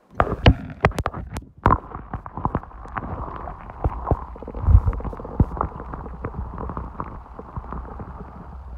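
Water sounds picked up by an iPhone's microphone held underwater in a lake: a rapid, uneven run of clicks and knocks, loudest in the first two seconds, over a low rumble, with a heavy low thump a little before five seconds in.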